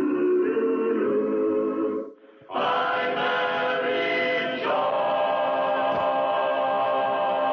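Choral music: voices singing sustained chords, breaking off briefly about two seconds in, then coming back with a long held chord that shifts to a new chord about five seconds in.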